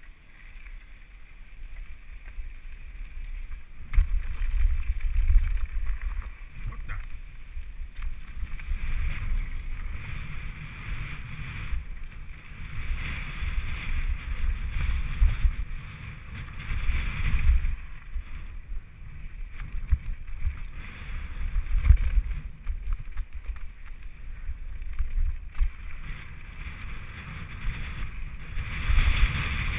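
Wind buffeting the microphone of an action camera on a mountain bike riding fast downhill, with tyre noise on a gravel trail. The rush rises and falls, louder from about four seconds in.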